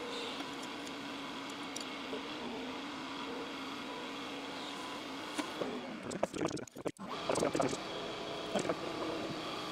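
Schaublin 125-CNC lathe running with the spindle turning and a carbide insert taking a turning pass along a pulley blank, a steady machine hum. About six seconds in the sound drops out briefly, then a couple of seconds of irregular clattering follow as the tool retracts, before the steady hum returns.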